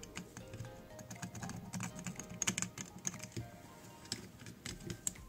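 Light, irregular clicks and taps of a screwdriver and soldering iron on a circuit board as a soldered-in gas sensor is heated and pried out, over soft background music.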